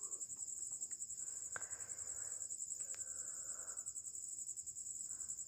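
Crickets chirping in a continuous high trill, with a faint rustle of yarn and a couple of light clicks as a crochet hook is worked.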